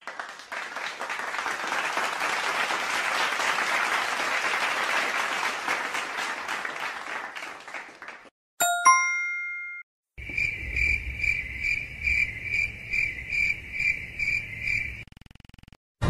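Applause, many hands clapping, for about eight seconds. Then a single bright ding rings out for about a second. After that a high ringing tone pulses about twice a second for about five seconds.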